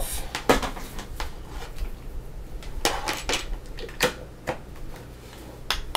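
Scattered sharp clicks and knocks from a plastic heated-blanket controller and its power cord being picked up and handled on a workbench.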